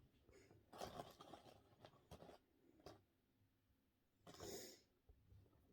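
Near silence in a small room, with a few faint breaths and soft clicks.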